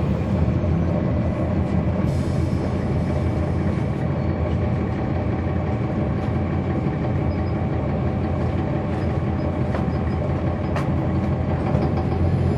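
Cummins ISL9 diesel engine of a 2010 NABI 40-SFW transit bus, heard from inside at the back, running at a steady pitch with a steady whine over it. A couple of faint clicks are heard.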